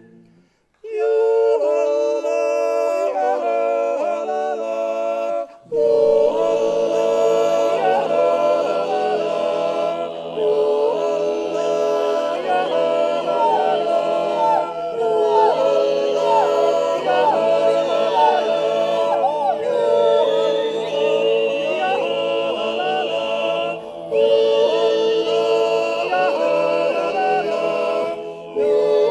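Men's choir singing a cappella in harmony: a Swiss yodel choir joined by Mongolian singers, holding sustained chords with quick leaps in pitch. The singing begins about a second in and breaks off briefly a few times.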